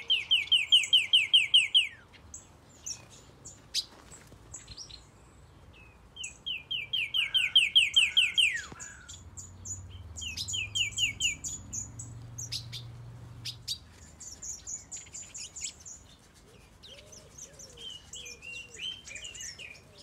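Aviary songbirds singing: a loud trill of quick slurred whistled notes, about ten a second, comes three times (at the start, about seven seconds in, and again about ten seconds in), with thin high chirps and calls between.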